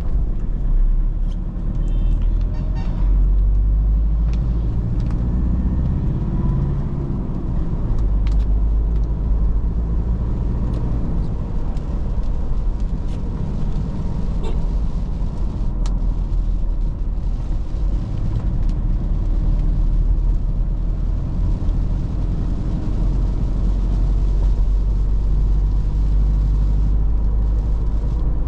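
A Toyota Fortuner's 3.0 L D4D four-cylinder turbo-diesel engine and tyre noise while driving: a steady low rumble with scattered light clicks.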